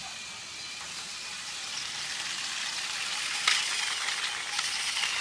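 Battery-powered Trackmaster toy engine running along plastic track: a rattling whir that grows louder, with a sharp click about three and a half seconds in and lighter clicks after it.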